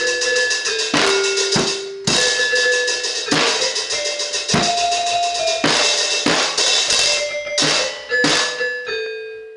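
Drum kit played loud and fast: a dense run of rapid strokes with heavier hits about once a second, over held pitched tones. The drumming breaks off shortly before the end, leaving a held tone.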